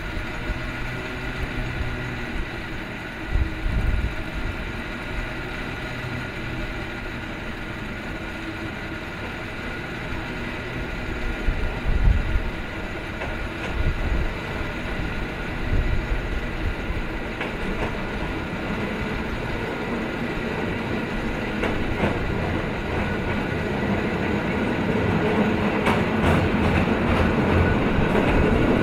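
San Francisco cable car climbing the hill toward the listener on its rails, a continuous rumble and whir with steady high tones, broken by a few clunks. It grows louder over the last few seconds as the car draws close.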